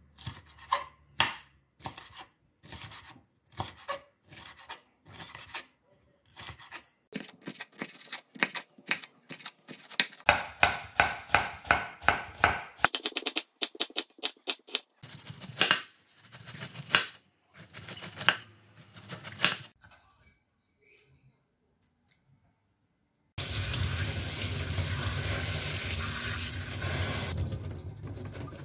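Chef's knife slicing an onion on a wooden cutting board: sharp knocks of the blade through to the board, settling into a quick, even rhythm of about four strokes a second. After a short pause, a tap runs steadily into a stainless steel sink over sliced onion held in a metal strainer.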